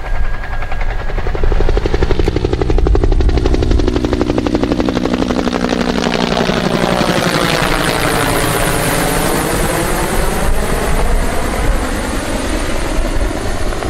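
Helicopter flying low overhead, its rotor blades making a fast, steady chop. A phasing sweep dips and rises around the middle as it passes over.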